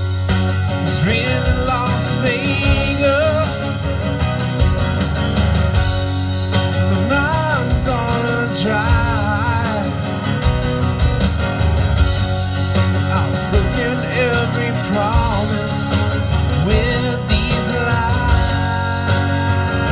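Live rock band playing an instrumental section of the song over bass and drums. A lead melody with bending, wavering notes rides on top.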